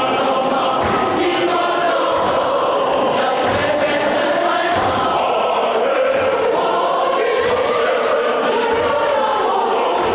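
Large men's choir singing together, many voices blended in harmony, steady and loud throughout.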